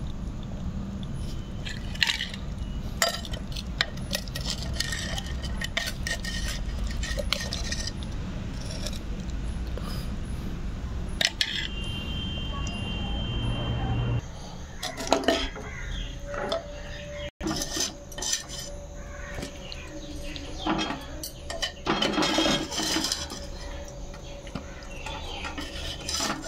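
Metal ladle clinking and scraping against a clay cooking pot and a steel serving tray as chicken curry is dished out. Sharp clinks come thickest in the second half, after a steady low rumble in the first half.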